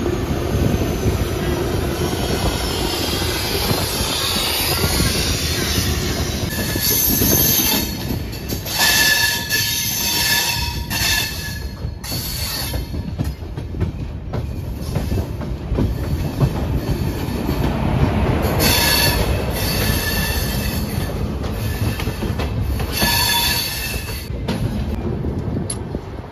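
Indian Railways passenger coach running into a station with a steady rumble of wheels on the track. About four high-pitched squeals of steel wheels on the rails break in, each lasting one to three seconds.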